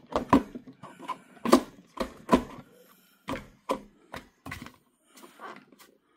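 Parts of a cotton candy machine being handled and fitted together, giving a string of irregular knocks and clicks.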